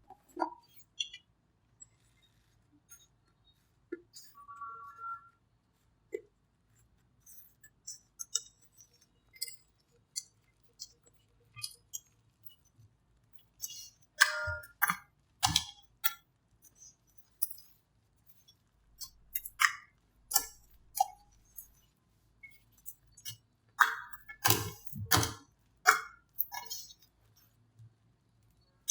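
Old slime being handled and mixed, giving scattered sharp clicks, pops and clinks with crackly stretches; sparse at first, then much busier from about halfway through.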